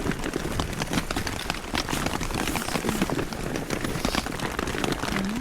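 Steady rain falling on a tent: a dense, irregular stream of small drop hits.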